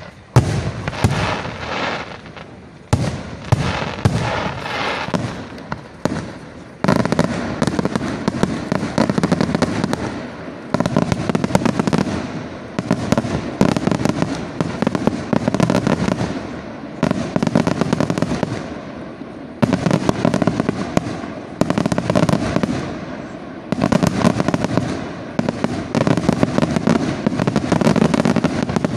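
Fireworks display: aerial shells bursting in rapid volleys of bangs, in waves that restart suddenly every few seconds. From about seven seconds in it becomes a near-continuous barrage.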